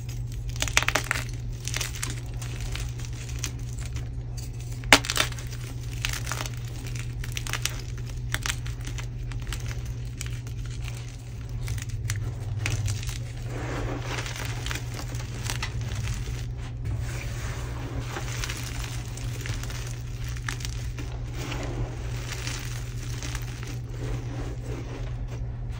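Dyed gym chalk crushed by hand. Chunks crunch and crackle, with one loud snap about five seconds in, then a steady gritty rustle as hands dig and rake through the crumbled chalk.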